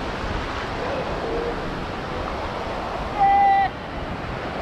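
Surf washing and wind in shallow breaking waves, a steady rushing noise. About three seconds in, a loud held note at one pitch cuts in for about half a second and stops sharply.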